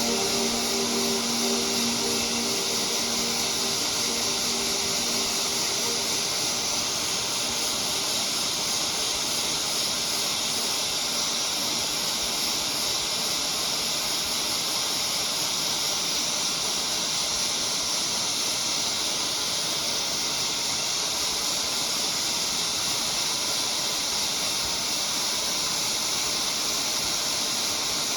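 Hot-air rework station blowing a steady, even hiss, the kind used to heat and lift or reflow a chip such as a console's south bridge.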